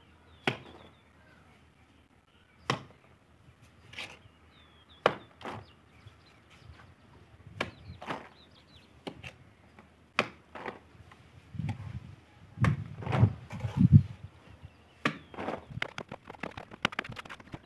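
Steel mason's trowel working cement plaster onto a brick wall: irregular sharp clinks and slaps about a second apart as mortar is scooped from a metal pan and thrown onto the bricks, with a run of duller thuds about two-thirds of the way in.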